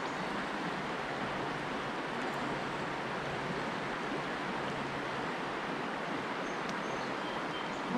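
River water flowing steadily past the bank, an even rushing noise.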